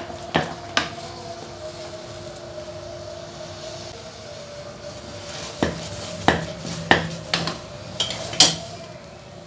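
A cooking spoon knocking and scraping against an aluminium pot as cooked rice is stirred and mashed: two knocks early on, then a run of sharper knocks in the second half. A faint steady hum runs underneath.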